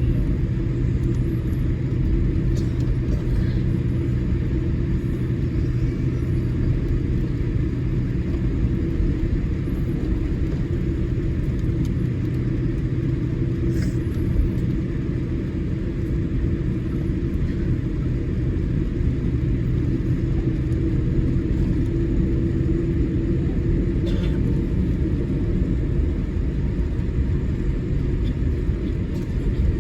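Steady low rumble with a constant hum inside the cabin of a Boeing 787-8 Dreamliner taxiing on the ground, with a few faint clicks.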